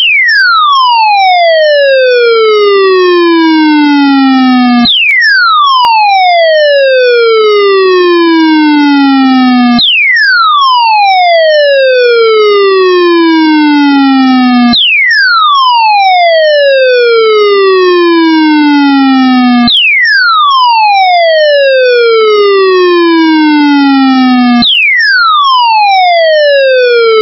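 Electronic siren-like alert tone for a severe thunderstorm warning, very loud and buzzy. Each cycle drops steeply in pitch, then glides down more slowly, and jumps back to the top about every five seconds.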